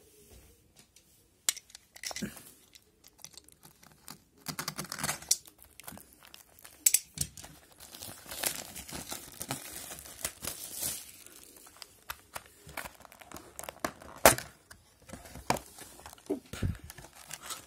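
Plastic shrink wrap crinkling and tearing as it is pulled off a sealed trading-card hobby box, in irregular rips and crackles, the sharpest one about 14 seconds in. Near the end the cardboard box is opened.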